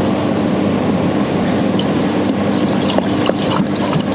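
Purified water pouring from a plastic jerrycan into the fill funnel of a laser welder's water chiller: a steady rush of falling water with a low steady tone running through it and a few light ticks.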